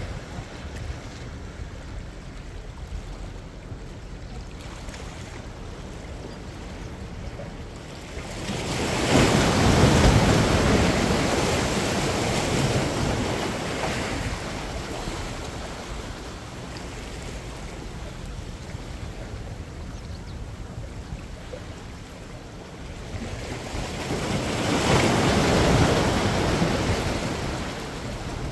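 Ocean surf washing against a boulder jetty: two waves surge in and rush over the rocks, one about a third of the way in and one near the end, each swelling up and slowly fading. Between them the sea is calmer under a steady rumble of wind on the microphone.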